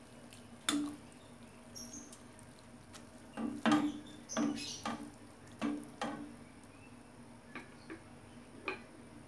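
A spatula stirring rice vermicelli in hot water in a stainless steel pot, knocking against the pot about ten times, each knock ringing briefly, most of them in the middle of the stretch.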